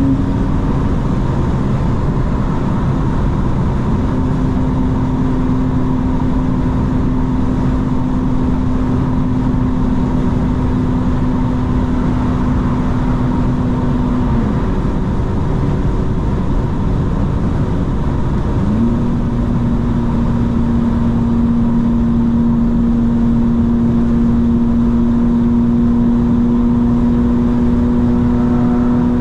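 2025 BMW M4 Competition xDrive's twin-turbo 3.0-litre inline-six cruising at a steady pitch over loud road and tyre noise. The engine note falls away about halfway through, as if off the throttle, and comes back in about four seconds later at a steady pitch.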